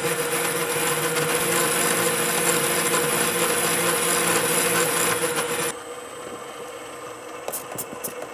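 Carbide-tipped hole saw cutting into stainless Damascus steel in a gearhead drill press turning at 120 RPM: a steady grinding and rasping with a held tone and a high whine. A little over two-thirds of the way through the cutting noise stops suddenly, leaving the quieter drill running, with a few light clicks near the end.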